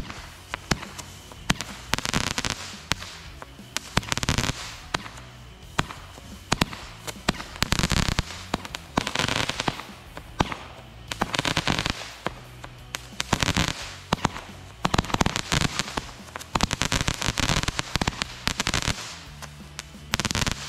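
A 36-shot Happy firework cake fires its shots in a quick run of sharp launch pops. Its comets break into dense crackling that comes in repeated stretches of a second or two throughout.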